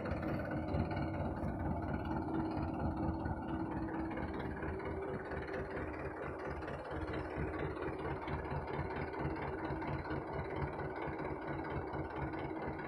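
A truck's diesel engine running steadily with an even low throb.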